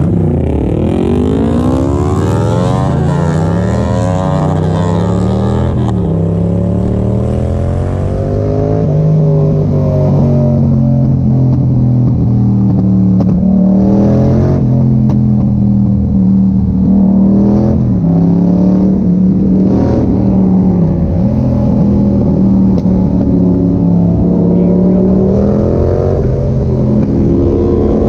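Yamaha MT-07's parallel-twin engine through an Arrow exhaust with the dB killer removed, accelerating with the pitch climbing and dropping back several times as it shifts up through the gears in the first six seconds, then running at a fairly steady speed with a few brief dips in pitch.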